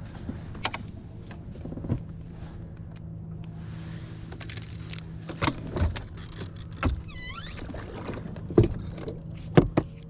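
Electric trolling motor humming steadily, with several sharp knocks and clicks from fishing on the boat, the loudest two near the end, and a short chirp that dips and rises in pitch about seven seconds in.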